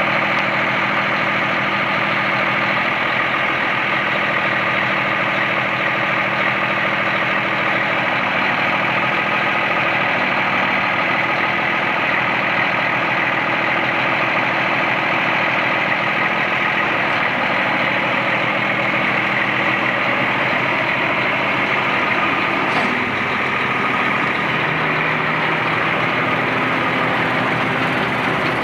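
1995 International 9400 truck's diesel engine idling steadily while its auger boom is raised, with a steady high whine running over the engine sound.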